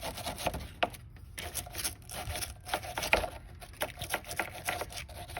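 Metal wire brush scrubbing corrosion off a car battery terminal clamp in short, irregular scratchy strokes. The corrosion is the cause of the bad connection that left the car only clicking.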